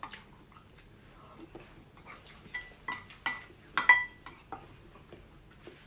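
Spoon clinking against a ceramic bowl several times while eating, with a brief ring on each strike, the loudest near the end of the run; small eating and tableware clicks in between.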